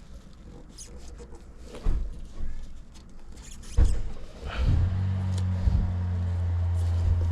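Tools and parts being handled with light clicks and knocks, then about two-thirds of the way through a motor starts and runs with a steady low hum.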